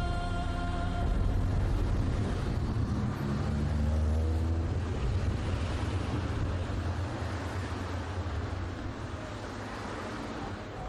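Car engine and street traffic: a low rumble with a rise in engine pitch a few seconds in, fading slowly toward the end.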